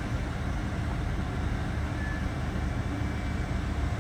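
Steady low rumble of heavy diesel vehicles running, a tow truck and a stuck bus, amid street traffic.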